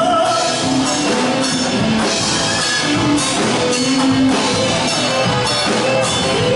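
Band music with drum kit and guitar: the accompaniment of a popular song, with a steady beat.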